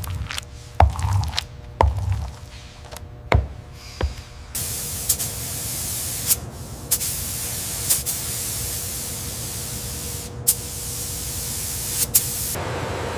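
A few sharp knocks and clicks, then about four seconds in a steady spraying hiss of air or spray starts, with occasional clicks in it, before giving way to a duller rushing noise near the end.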